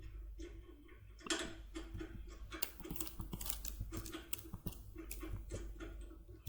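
Topolino decoder being worked lightly in a TESA T80 lock: a run of small, irregular metallic clicks and scrapes, sparse at first and busier from about a second in.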